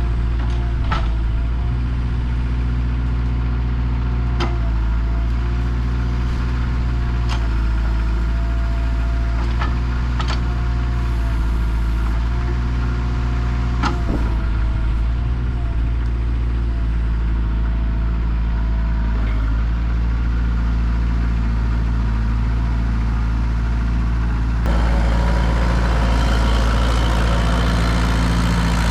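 Kubota L48 tractor loader backhoe's diesel engine running steadily, with a few sharp knocks or clanks in the first half; about 25 s in it gets louder and brighter, as under more throttle or load.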